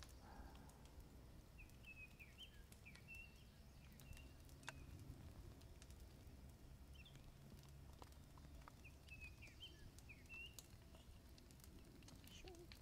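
Near silence: quiet woodland ambience with faint, short bird chirps in two brief runs, a few soft clicks, and a low steady hum.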